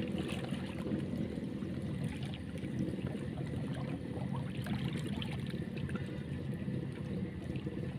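Steady low rumble of shallow seashore ambience, water and air noise, with faint scattered ticks over it.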